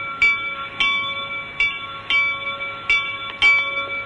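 Altar bells rung at the elevation of the host after the words of consecration: about six bright strikes, one every half to three-quarters of a second, each leaving a ringing tone.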